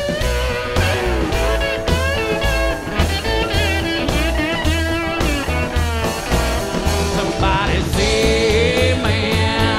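Live rock band playing: a lap steel guitar solo of sliding, gliding notes over a steady bass and drum beat.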